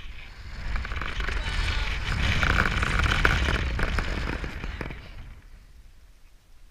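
Wind rushing and buffeting over a GoPro's microphone during a bungee jump fall, with a crackling rumble. It swells about a second in, is loudest in the middle and dies away after about five seconds as the fall slows.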